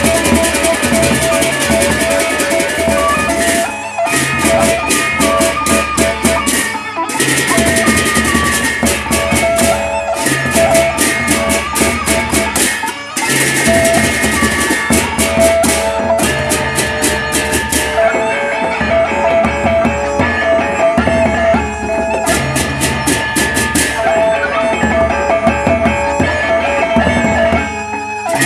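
Lombok gendang beleq gamelan ensemble playing: two large barrel drums beaten with sticks, rapid clashing of hand-held cymbals, and gongs ringing. The music breaks off briefly a few times, about 4, 7 and 13 seconds in.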